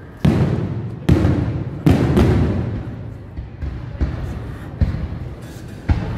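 Aerial firework shells bursting: a run of deep booms about a second apart, each trailing off in a rolling echo, with fainter booms near the end.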